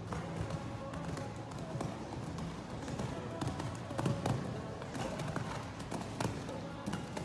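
A horse's hooves thudding on sand arena footing as it canters between fences, over background music.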